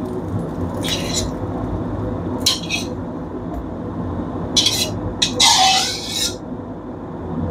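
Metal spatula scraping and clinking against a stainless steel wok and bowl as fried egg is scooped out, in about five short scrapes with the longest near the end. A steady low background sound runs underneath.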